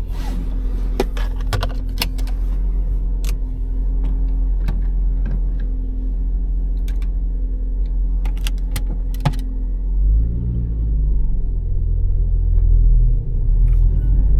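The 1.8-litre four-cylinder petrol engine of a 2006 Honda Civic idling steadily, with a scatter of sharp clicks and jingles in the cabin over the first nine seconds or so. About ten seconds in, the engine note rises and the low rumble grows as the car pulls away.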